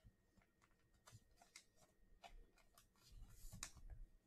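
Faint handling of trading cards: scattered light clicks and rustles of card stock and plastic, ending in a short slide of the card into a clear plastic sleeve.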